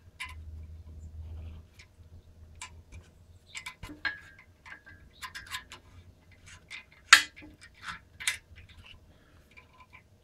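M10-1.5 hand tap being turned into a hole in an aluminium oil pan with a T-handle tap wrench: irregular metal clicks and ticks, the sharpest about seven seconds in.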